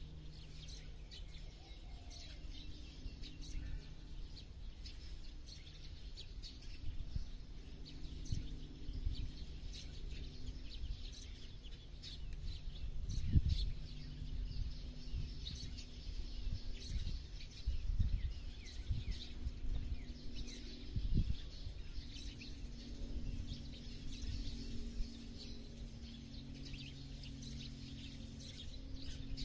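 Many small birds chirping and twittering in short, overlapping calls over a low outdoor rumble. A few dull thumps come through, the loudest about thirteen seconds in.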